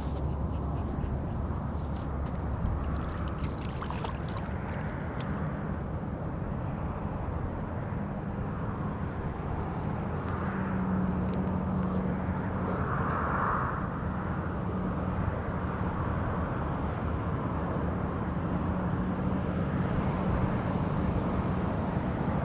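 Steady outdoor background noise with a distant engine's low, even drone that fades in and out, strongest in the middle and again near the end.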